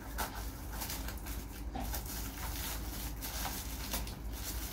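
Faint rustling with scattered light clicks, as of small objects or packaging being handled.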